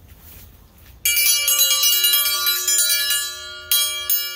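A metal bell rung, starting suddenly about a second in with a quick run of repeated strikes whose ringing overlaps, then struck once more near the end.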